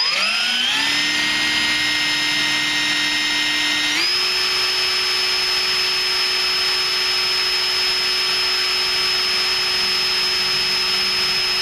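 Cordless drill running at high speed, drilling a pilot hole into an aluminum running-board tube. The motor whine rises as it spins up, steps up in pitch about four seconds in, then holds steady.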